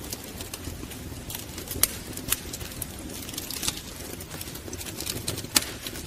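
Wood fire crackling: irregular sharp snaps and pops over a low, steady rumble of flames, with louder pops about two seconds in and near the end.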